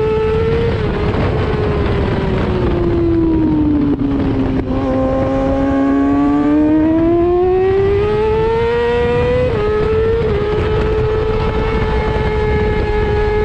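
Yamaha YZF-R6 600cc inline-four race engine running at high revs. The engine note sinks slowly through the middle of the stretch, climbs back up, gives two small hitches, then holds a steady high pitch, with wind rush on the onboard microphone underneath.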